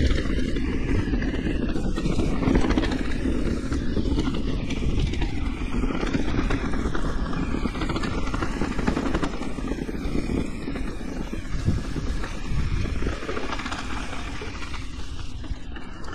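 Electric mountain bike descending a dirt enduro trail: a steady low rumble of wind buffeting and tyre and frame rattle.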